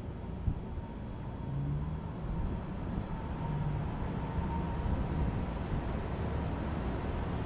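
Outdoor air-conditioning condensing unit running: a low mechanical hum that swells over the first couple of seconds, then holds steady, with a faint whine above it.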